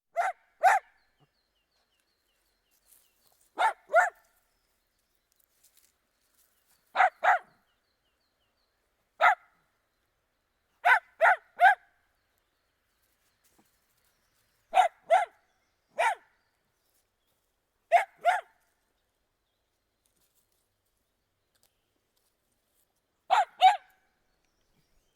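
Dachshund barking: short barks, mostly in pairs and once in a run of three, with a few seconds of silence between groups.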